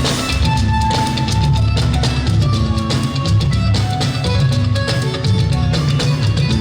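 Band music with a busy beat of drums and percussion over a heavy bass line and short melodic phrases, with no singing.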